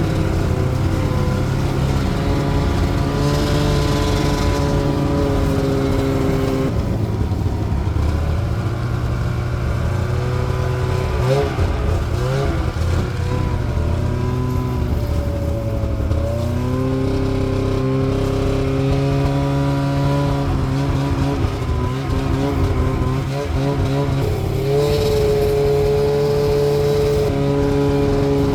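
Arctic Cat Sabercat two-stroke snowmobile engine running under way, its pitch rising and falling as the throttle changes.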